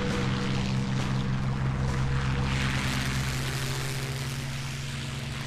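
Several P-51 Mustang fighters' V-12 piston engines droning steadily in flight: a deep, even propeller-aircraft rumble that eases slightly toward the end.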